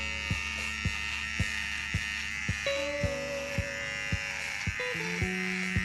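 Philips 1000 beard trimmer buzzing steadily as it trims a beard, under background music with a steady beat of about two strokes a second.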